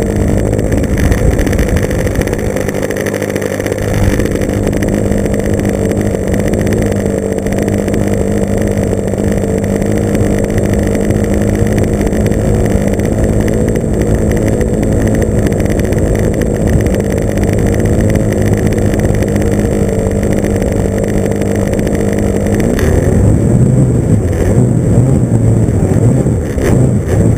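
Engine of a Tower Hobbies .40 trainer RC airplane idling steadily on the ground. Near the end it throttles up with a rising pitch and gets louder as the plane starts its takeoff roll across the grass.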